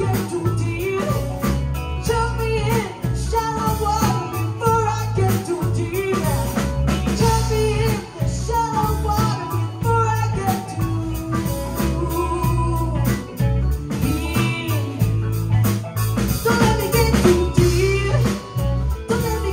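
Live band playing: a woman singing lead over electric guitar, electric bass, keyboards and drum kit.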